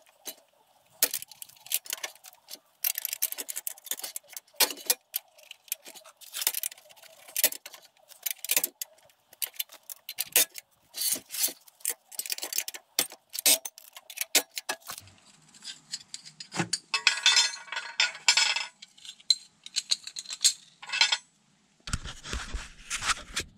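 Irregular sharp metallic clinks and clicks of steel mower blades and the blade-change lever knocking against the steel discs of a disc mower as the blades are swapped and set down.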